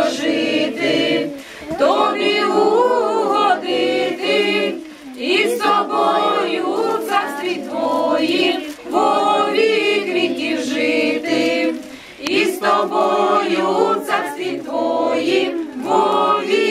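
A small mixed group of women's voices with a man's voice, singing a Ukrainian Christmas carol (koliadka) unaccompanied, in long phrases with brief breaks between them.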